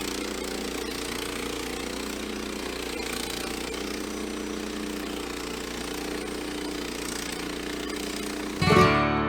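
Engine of a band sawmill running steadily. About eight and a half seconds in, strummed acoustic guitar music starts suddenly and takes over.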